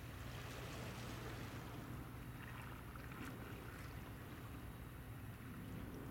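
A steady low mechanical hum under a faint even hiss.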